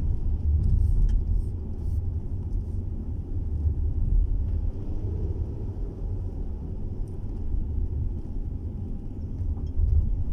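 Steady low rumble of a moving car heard from inside the cabin: engine and tyre noise on a wet road.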